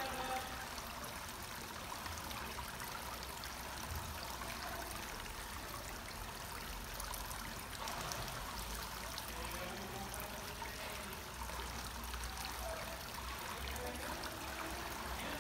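Steady splashing and sloshing of pool water as children kick their way across a swimming pool on foam noodles.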